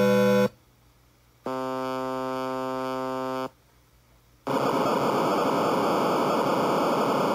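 SN76489 sound chip: a three-tone chord of 122, 200 and 500 Hz cuts off about half a second in. After a second's pause its periodic noise plays as a steady buzzy tone for about two seconds, then after another pause its white noise hisses for about three seconds.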